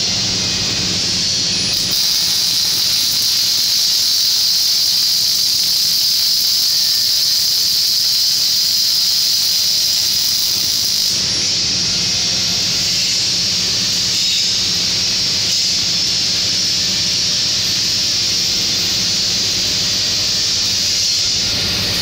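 Panasonic welding robot arc welding with its wire-fed torch: a steady high-pitched hiss over a constant low hum, easing off near the end.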